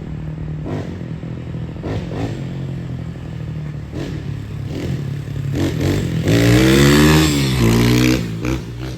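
Apollo RXF 150cc dirt bike's single-cylinder engine running steadily, with a few clattering knocks. About six seconds in it is revved up and back down, followed by a shorter blip.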